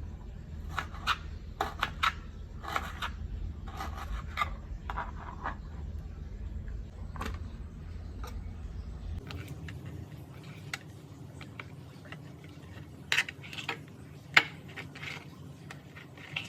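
Kitchen utensils clinking and scraping against cookware in short, irregular bursts, with one loud sharp clink about fourteen seconds in. A low hum underneath stops abruptly about nine seconds in.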